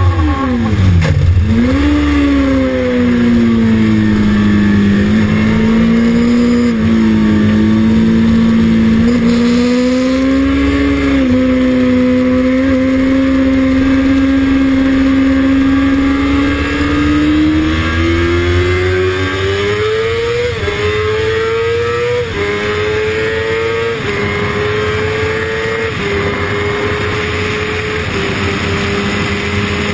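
Kawasaki ZX-6RR's inline-four engine heard from on the bike: the revs fall sharply as it slows for a corner, hold fairly steady through the turn, then climb again with five upshifts about every two seconds in the last third, the pitch dropping at each change. Wind rushes over the microphone throughout.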